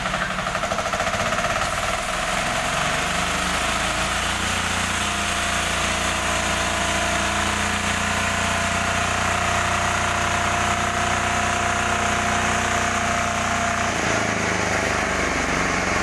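Newly assembled engine-driven portable band sawmill cutting lengthwise through a log, its engine running steadily under load. The engine note shifts about four seconds in and again near the end.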